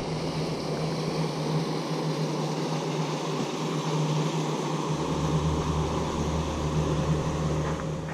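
Boat motor running steadily with a constant low hum, a deeper rumble joining about five seconds in.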